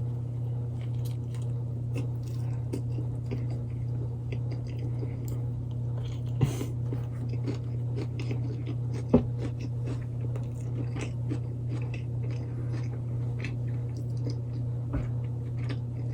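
A person chewing a grilled chicken wrap close to the microphone, with many small wet mouth clicks, over a steady low hum. Two sharper knocks stand out, about six and a half and nine seconds in.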